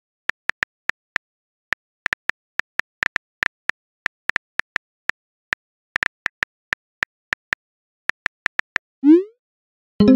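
Phone keyboard key-click sounds in a quick, irregular run as a text message is typed, then a short rising swoosh as the message is sent about nine seconds in. Music starts at the very end.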